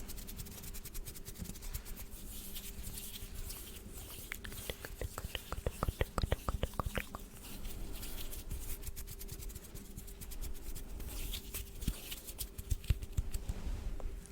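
Close-miked ASMR mouth sounds: a continuous run of small wet clicks and smacks, with a quicker cluster of sharper clicks about four to seven seconds in.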